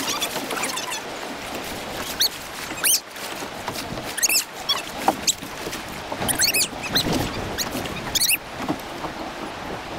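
Water sloshing and splashing against a kayak on choppy sea, a rough uneven wash with several short, squeaky high-pitched sounds mixed in.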